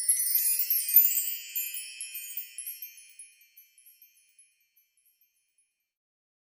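A cascade of high, tinkling chime tones, like a wind chime or sparkle sound effect, fading out over about four seconds before the sound cuts to silence.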